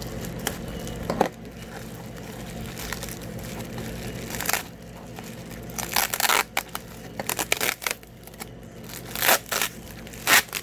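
Packing material being crinkled and torn by hand while a package is unwrapped, in irregular rustling bursts that grow busier in the second half.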